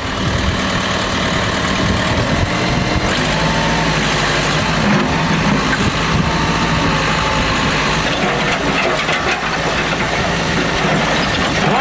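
1974 Case 580B backhoe's engine running steadily under load while the hydraulics push down on scrap being crushed.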